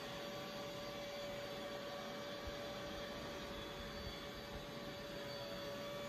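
Robot vacuum running on carpet: a steady whirring noise with a thin, steady tone in it, and a couple of faint low knocks about halfway through.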